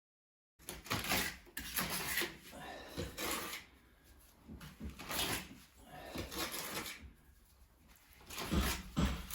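Irregular scraping and rubbing strokes with occasional knocks, typical of hand work on a wall or wood surface, starting about half a second in.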